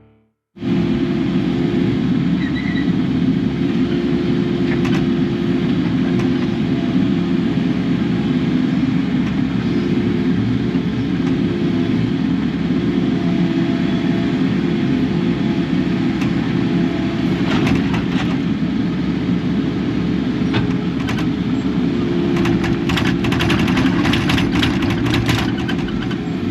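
Kubota KX080 excavator running steadily, its diesel engine and hydraulics making a constant hum, with scattered clicks and knocks in the last third as it works.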